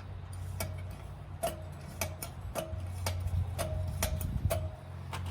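A run of sharp, light metallic clicks, roughly two a second and a little uneven, each with a brief ring, over a steady low hum.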